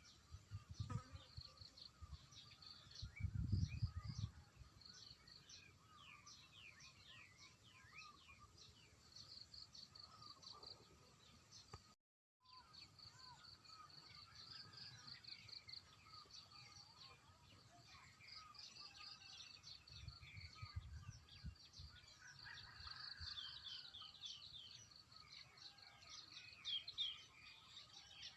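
Faint chorus of small birds chirping and calling, with many quick downward-sweeping chirps. A low rumble about three seconds in, the loudest moment, and another near two-thirds of the way through. The sound cuts out briefly near the middle.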